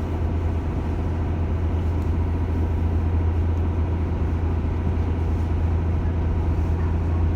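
Cruise boat's engine running with a steady low drone.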